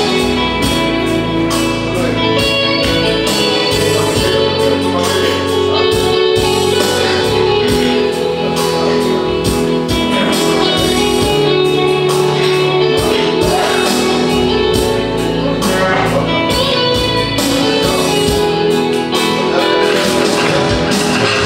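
Instrumental music with guitar, sustained chords and a steady beat: the introduction to a song before the singer comes in.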